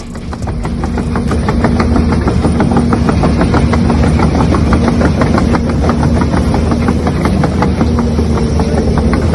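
An engine idling steadily with a rapid, even knocking beat of about seven beats a second.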